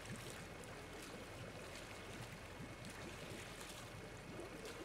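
Water splashing and churning in a shallow tarpaulin tank as a mass of rohu fry is scooped out with a mesh scoop and a bowl. There are many small splashes close together.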